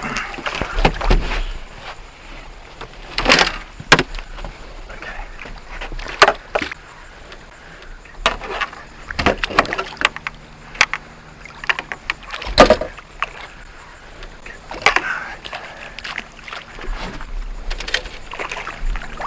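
Irregular knocks and thuds against a small skiff's hull, with splashes, as a hooked redfish is fought and landed by hand at the boatside, with wind rumbling on the microphone.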